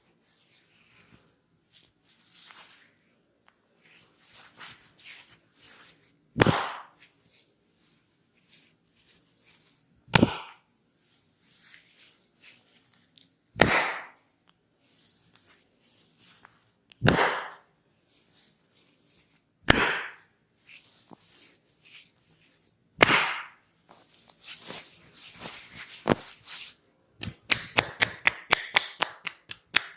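Hand slaps during a head massage: six sharp smacks, each a few seconds apart, with faint rubbing of hair and scalp between them. Near the end comes a fast run of tapping strokes, about five a second.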